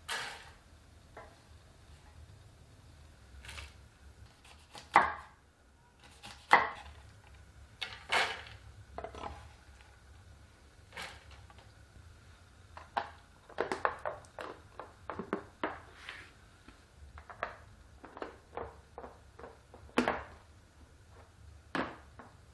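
Irregular knocks and clicks of kitchen work, with a quick run of taps in the middle.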